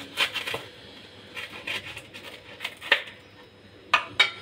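A knife crunching through crisp, pan-toasted cheese garlic bread on a wooden board, in a series of short crackly crunches. The crunch is the sign of a well-crisped toast base.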